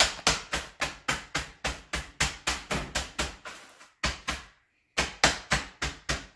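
Oreo cookies in a zip-top plastic bag being pounded on a kitchen counter with a hand tool to crush them: rapid, even knocks about four a second, which pause briefly about four seconds in and then resume.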